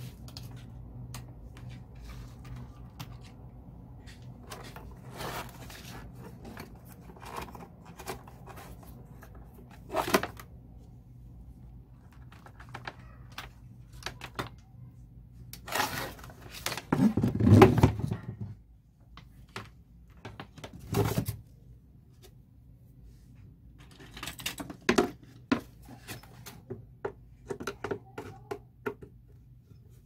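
Plastic fan heater being handled and moved about on a workbench: scattered clicks and knocks of its plastic casing, with one louder bump a little past halfway, over a faint steady low hum.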